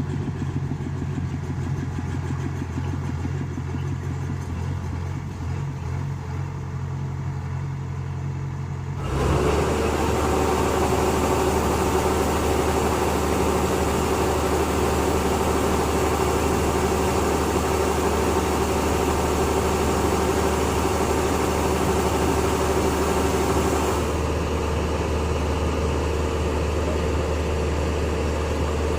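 Steady drone of a working machine's engine running. About nine seconds in, the sound switches abruptly to a louder, hissier run. It shifts again, more quietly, near the end.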